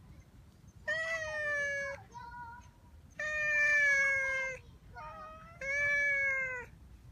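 Brown tabby cat meowing: three long meows of a second or more each, with softer, shorter calls between them.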